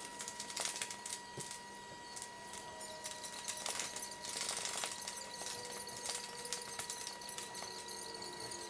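A paint-covered soccer ball and sneakers tapping and scuffing on paper sheets laid over a hard floor, a run of small irregular taps with faint squeaks. A faint steady high tone runs underneath.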